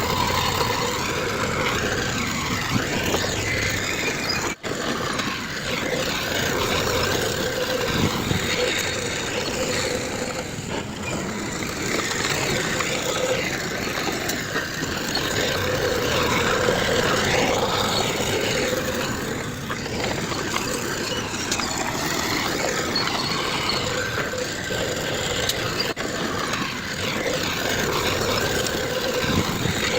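Diesel engines of heavy earth-moving machinery, bulldozer and dump trucks, running steadily with a constant drone. The sound drops out for an instant about four and a half seconds in.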